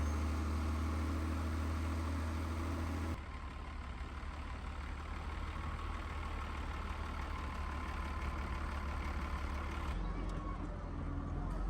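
Engines of heavy earth-moving machinery (bulldozers or loaders) running steadily with a deep rumble. The sound shifts abruptly about three seconds in and again near the end.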